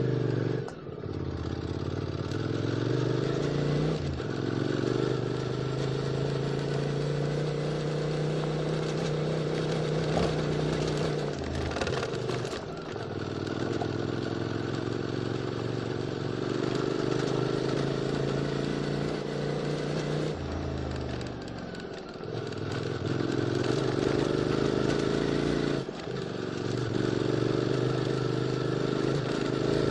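QJ Motors SVT650X motorcycle engine through an Arrow Racetech slip-on exhaust, ridden on throttle. The revs drop and pick up again several times as the throttle closes and reopens.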